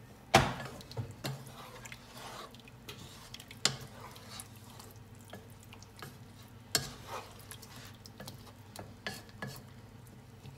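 Wooden spatula stirring a coconut-milk chicken curry in a metal pot, with wet stirring sounds and scattered knocks of the spatula against the pot. The loudest knocks come about half a second in, near four seconds and near seven seconds, over a faint steady low hum.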